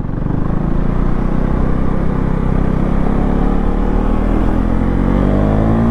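KTM 390 Duke third-generation single-cylinder engine pulling hard in second gear. Its note rises steadily in pitch as the bike accelerates, climbing faster near the end.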